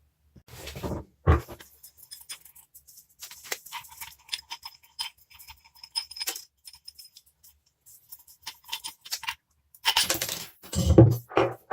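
Light metallic clicks and clinks of small steel vise parts being handled, with a single knock about a second in and a burst of knocking and scraping near the end.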